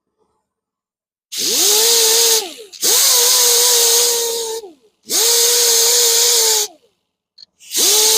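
Power grinder with a 60-grit abrasive grinding down the curbed spoke of an aluminium alloy wheel. It starts about a second in and runs four times. Each run spins up to a steady whine under a hiss of abrasive on metal and winds down after a second or two; the last run is still going at the end.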